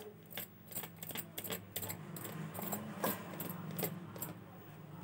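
Light clicks and rustles from a paper carton being handled as corn flour is poured from it into a cup set in a steel bowl, over a low steady hum.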